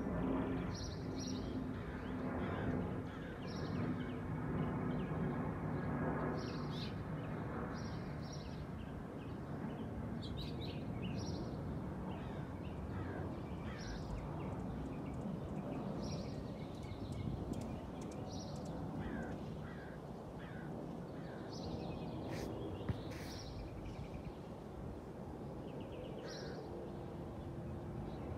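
Short, high bird chirps repeating every second or two over a steady low rumble of distant city traffic. A low engine drone is heard for the first several seconds, then fades.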